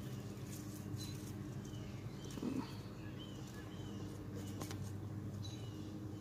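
Quiet background: a steady low hum with a few faint, short high chirps of small birds and a couple of light clicks.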